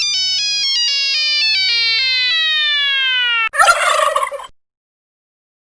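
A notification sound effect: a bright electronic tone falls in pitch, first in small steps and then in one smooth downward slide lasting about three and a half seconds. It cuts off abruptly into a short, noisy, fluttering burst about a second long.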